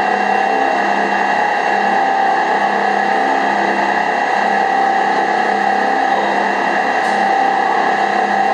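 Vacuum homogenizing emulsifying mixer running: a steady machine hum with several constant tones from its motors as it churns the batch in the tank.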